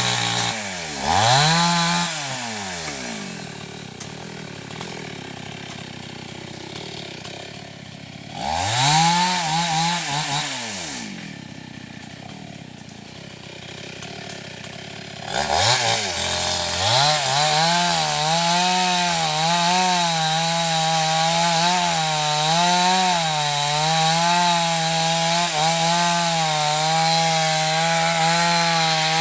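Two-stroke chainsaw revving up briefly twice and dropping back to idle, then from about fifteen seconds in held at high revs with its pitch wavering as it cuts through wood.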